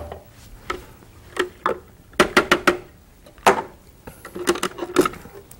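Irregular knocks, clicks and scrapes of a utensil against a food processor bowl as minced cauliflower is emptied out, with a quick run of taps about two seconds in.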